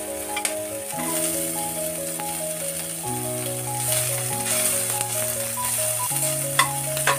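Sliced onions sizzling in hot oil in a stainless-steel kadhai as they are stirred with a steel spatula, with a few sharp clicks of the spatula against the pan. Background music of slow, held chords plays throughout.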